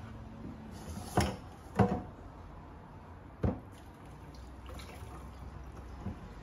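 Three knocks as the Thermomix TM6's plastic simmering basket and stainless-steel mixing bowl are handled in a steel sink, then cooking water pouring out of the tipped bowl into the basket to drain the spaghetti.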